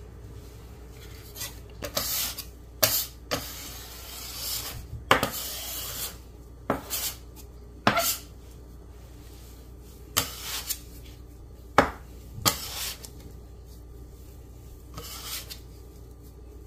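Metal bench scraper scraping and lifting crumbly cookie dough across a hard countertop, in irregular strokes with several sharp clacks of the blade against the counter.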